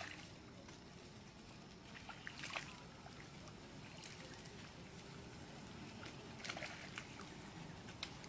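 Faint water sloshing from young macaques dipping and swimming in a shallow pond, with a few brief splashes about two and a half and six and a half seconds in.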